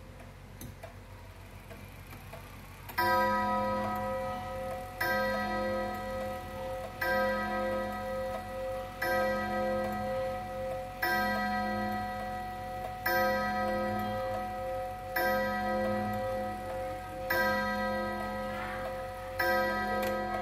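Antique HAC pendulum wall clock striking the hour at twelve o'clock. After about three seconds of faint ticking, nine ringing gong strikes follow, about two seconds apart, each one still sounding when the next lands.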